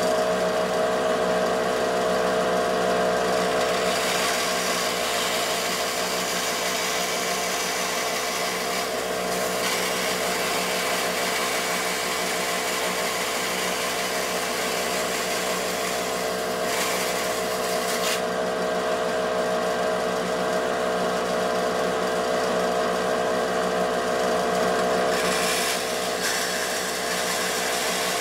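Woodworking bandsaw running with a Starrett bimetal variable-pitch blade, sawing through thin brass sheet: a steady motor and blade hum under a hissing cut that grows louder and fades back several times as each cut starts and ends.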